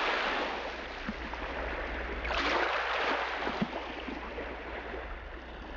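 A steady rushing noise with a low hum underneath, swelling briefly a little over two seconds in.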